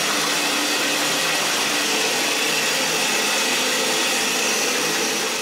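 Bathtub faucet gushing water at full blast into a partly filled tub, a loud, steady rush. The valve handle is already in the off position, so the water won't shut off: a failed valve stem.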